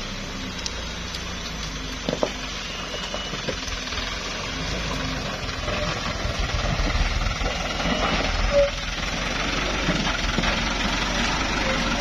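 Toyota Dyna dump truck's diesel engine working hard as the truck climbs a slippery mud incline, growing steadily louder as it comes closer.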